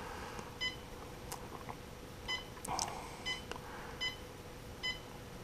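Humminbird HELIX 12 fish finder's keypad beeping as its buttons are pressed: five short electronic beeps, spaced irregularly about a second apart, one for each step down the settings menu.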